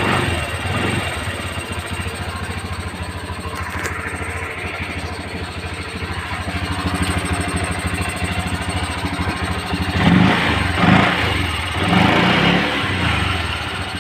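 Honda Beat automatic scooter's small single-cylinder engine idling steadily, with three short throttle blips near the end.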